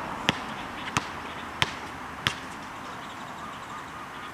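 Basketball bounced on an asphalt court: four dribbles about two-thirds of a second apart, then the bouncing stops.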